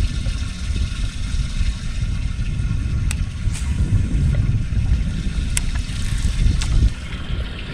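Wind buffeting the microphone, an uneven low rumble, with a few sharp clicks.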